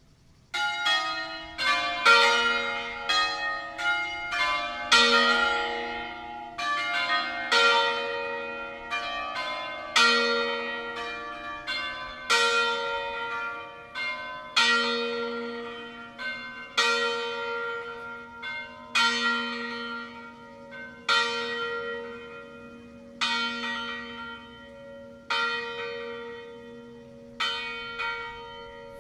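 Swinging bronze church bells of a five-bell tower tuned in B-flat, the clappers striking as each bell swings and every stroke leaving a long ringing tone. The ringing starts suddenly with a quick run of strokes, then settles into a steady stroke about every two seconds.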